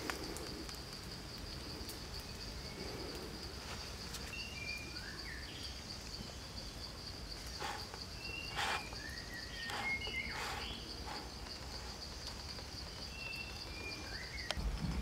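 Steady, high, pulsing insect trill throughout, with short bird chirps at intervals and a few sharp knocks around the middle.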